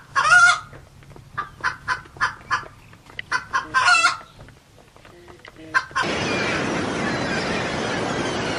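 Chickens clucking in a run of short calls, with two longer, louder calls among them. About six seconds in, this cuts abruptly to a steady rushing noise.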